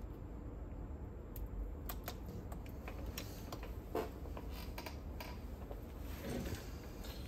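Scattered light clicks and taps of a screwdriver and small parts being handled on a cassette deck's tape transport, with one louder knock about four seconds in.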